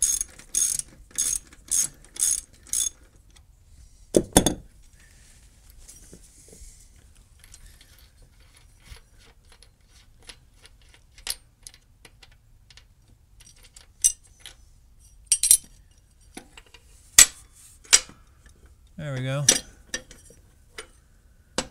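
Socket ratchet clicking, about three clicks a second, as it backs out the bolt in the middle of a lawn tractor deck's idler pulley. A clunk follows about four seconds in, then scattered metal clinks as the bolt and pulley are handled and lifted off.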